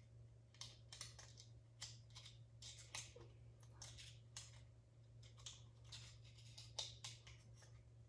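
Faint, irregular small clicks and scrapes of a plastic garage door opener wall button being handled and fitted against the wall, over a low steady hum.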